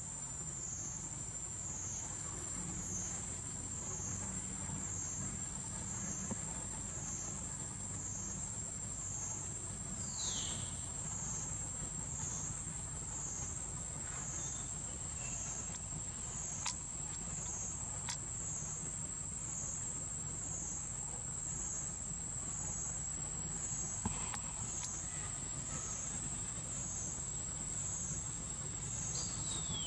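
Steady high-pitched insect chorus, pulsing regularly about once a second, over a low steady rumble. A short falling whistle-like call cuts in about ten seconds in and again at the very end.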